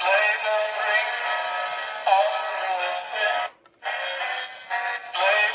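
Animated snowman decoration's small built-in speaker playing its synthesized Christmas song with a sung melody, thin and tinny with no bass. The song cuts out for a moment a little past halfway.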